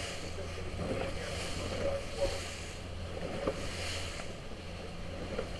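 Wind buffeting the microphone and water washing against a boat's hull, over the steady low hum of a boat motor.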